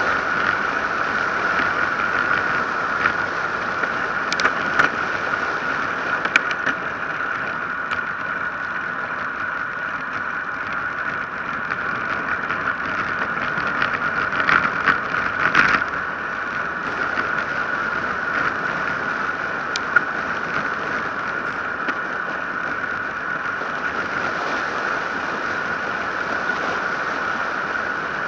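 Steady rush of wind and tyre noise from a road bike coasting downhill at speed, heard through an action camera's microphone. A few sharp knocks and rattles break through, several in a cluster about halfway through.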